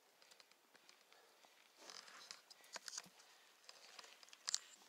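Faint sounds of a mountain bike rolling up and past on a dirt singletrack: tyres on dirt with scattered clicks and rattles, busiest around the middle, and one sharp click about four and a half seconds in.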